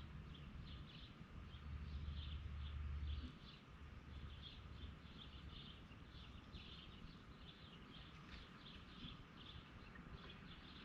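Wild birds chirping in a steady run of short, high calls. A low rumble lies under them and cuts off about three seconds in.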